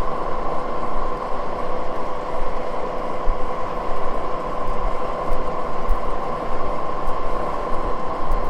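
Moore No. 2 jig borer running: a steady mechanical whir with an even, high whine that holds the same pitch throughout.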